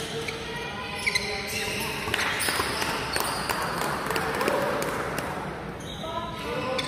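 Badminton court sounds: scattered short, sharp clicks of rackets and shuttlecock and players' movement on the court, with players' and spectators' voices.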